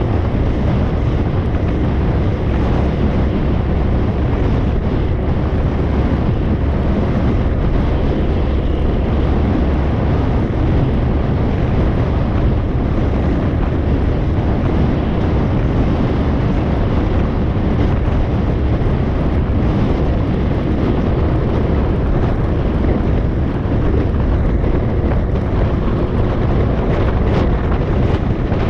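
Steady wind rush on the microphone of a moving motorbike, mixed with engine and tyre noise, heaviest in the low end and without a break.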